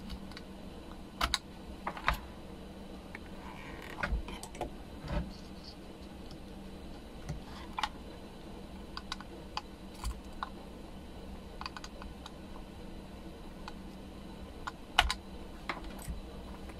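Scattered light clicks and taps of a soldering iron and tweezers against a circuit board as resistors are desoldered, at an irregular pace, over a faint steady hum.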